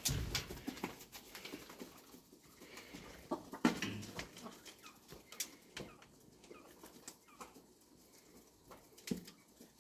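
A flock of Amrock hens pecking at sprouted oats in a feed tray: scattered sharp pecking clicks throughout, with louder knocks at the start, about a third of the way in, and near the end.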